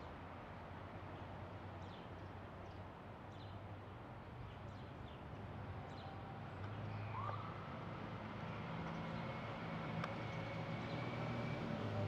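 Short, faint, high bird chirps over steady outdoor background noise in the first half, then a low vehicle engine hum that comes in after about six seconds and grows louder toward the end.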